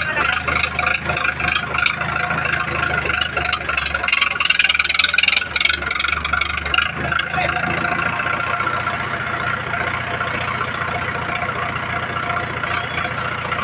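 Mahindra 585 tractor's diesel engine running, its low note shifting a few times in the first half and then holding steady.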